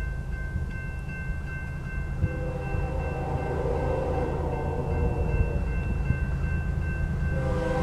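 Approaching freight locomotive's air horn sounding a long chord, starting about two seconds in and breaking off near the end, over the steady electronic ring of the grade-crossing warning bell. A low rumble of the oncoming GE diesel locomotives grows beneath it and swells as the horn stops.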